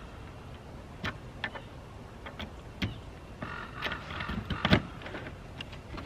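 Thule rooftop cargo box being unlatched and its lid opened: scattered clicks and plastic knocks, with the loudest sharp click about three-quarters of the way through.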